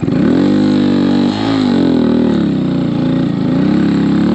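Honda Monkey's single-cylinder four-stroke engine revving high, its pitch jumping up at the start and then wavering up and down, dipping briefly about a second and a half in. The rear wheel is spinning without traction in deep snow.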